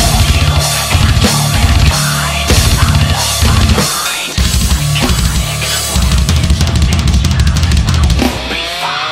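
Heavy metal backing track with a drum part played on a touchscreen drum-kit app: fast, dense kick-drum strokes under snare and cymbals, with short breaks about four seconds in and near the end.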